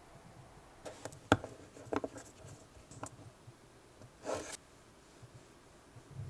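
Close handling of small plastic cosmetic tubes: a few light clicks and taps, then a short scraping rub about four seconds in as a lip tint's applicator wand is drawn out of its tube.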